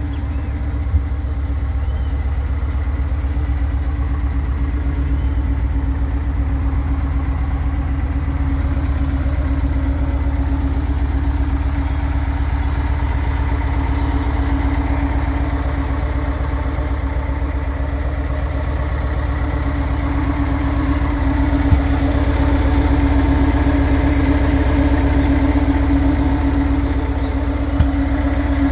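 Volkswagen Bus's air-cooled flat-four engine idling steadily.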